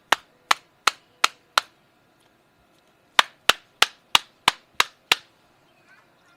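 A used, dirt-clogged cabin air filter being knocked against a hard surface to shake the dust out: five sharp knocks about three a second, a pause of about a second and a half, then seven more.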